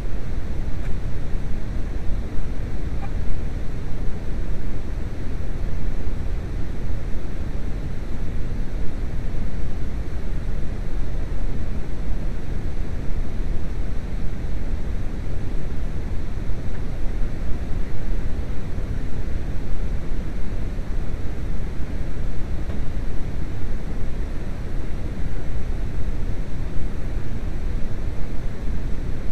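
A steady, even rushing noise, heaviest in the low end, with no clicks, tones or rhythm standing out.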